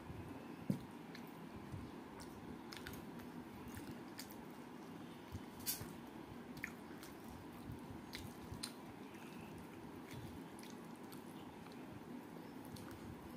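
Fingers squishing and kneading cooked rice mixed with dal on a steel plate, with scattered faint clicks against the metal and a soft knock near the start.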